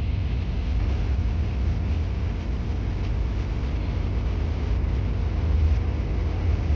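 Moving passenger train, a steady low rumble with an even hiss above it and no distinct clacks.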